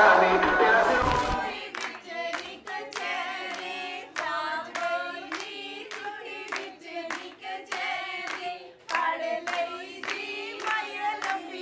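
A group of women singing a wedding song together, keeping time with handclaps about twice a second. A louder recorded music track cuts off about a second and a half in.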